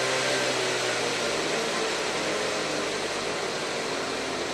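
Large-scale model train locomotive's electric motors and gears whirring under pulse-width-controlled power. The whine falls slowly in pitch and gets a little quieter as the throttle is turned down from full speed.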